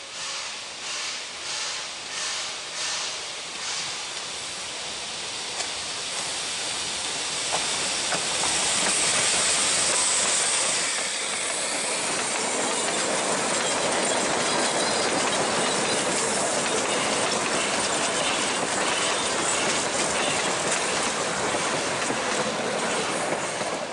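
Victorian Railways NA-class 2-6-2T narrow-gauge steam locomotive 8A approaching with about two exhaust chuffs a second, loudest with a rush of steam hiss as it passes about eight to eleven seconds in. Then a steady rumble and clatter as its carriages roll by on the 2 ft 6 in track.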